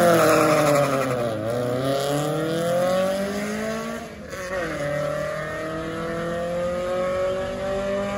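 Drag-racing cars accelerating hard at full throttle off the line. The engine pitch climbs, drops sharply at gear changes about a second and a half in and again about four and a half seconds in, then climbs steadily as the cars pull away down the track.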